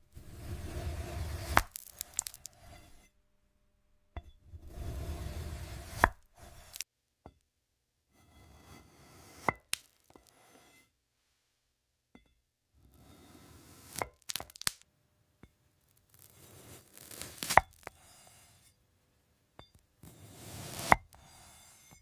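Glassy strawberries being crunched, in six separate bouts a few seconds apart. Each bout is a rasping crunch that ends in one or two sharp cracks.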